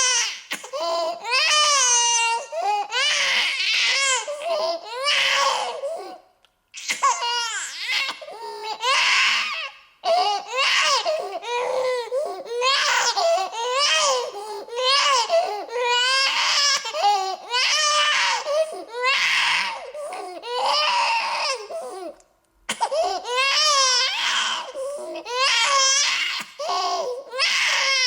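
Infant crying in repeated high-pitched wails of about a second each, some breaking into shaky, stuttering sobs, with two brief pauses for breath.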